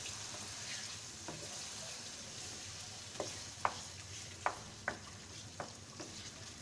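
Chicken, tomato and spice masala sizzling in a non-stick wok as it is stirred, a steady frying hiss. A spatula clicks against the pan about seven times, mostly in the second half.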